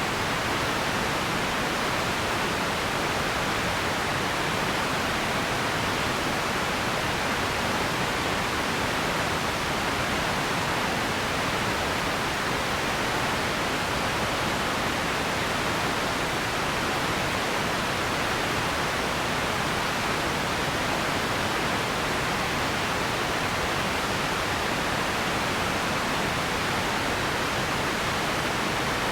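Radio static: a steady, even hiss with no tones or changes.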